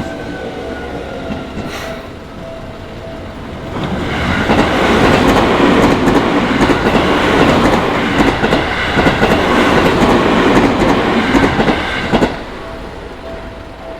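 A Seibu Shinjuku Line electric train passing over a level crossing. The noise of its wheels on the rails swells about four seconds in and stays loud, with a rapid clatter over the rail joints. It cuts off sharply about twelve seconds in as the train clears the crossing.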